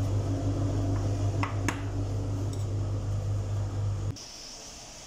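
Steady low electrical hum from a running kitchen appliance, with two or three light clinks of a knife against a glass bowl about a second and a half in. The hum cuts off suddenly about four seconds in, leaving a faint hiss.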